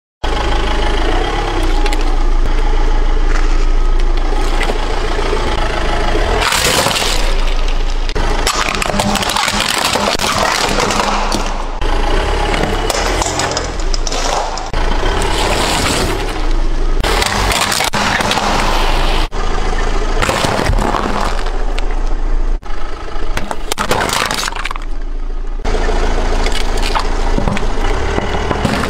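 Car tyre rolling over and crushing plastic objects, including filled toothpaste tubes, stacked plastic rings and a plastic bottle, in several separate stretches of cracking and breaking over a low steady hum.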